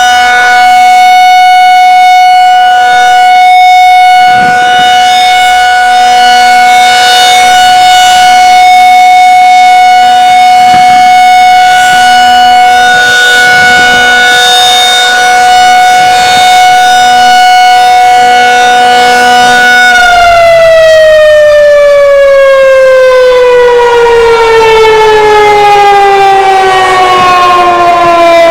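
Federal Signal 2001-SRN single-tone rotating outdoor warning siren sounding a loud, steady tone. About twenty seconds in, its pitch starts a long, even fall as the rotor spins down, the siren winding down at the end of the signal.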